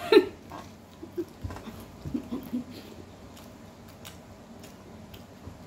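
Eating kubos (Arabic flatbread) by hand: soft, scattered chewing and mouth clicks and the small sounds of bread being torn apart, after a brief voice sound at the very start.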